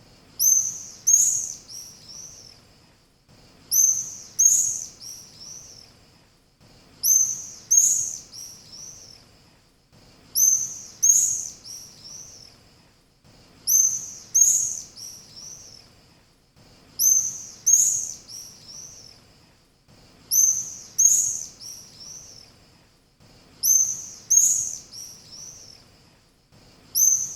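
Swallow calls: a short burst of several quick, high chirps. The same phrase repeats about every three seconds, as if looped.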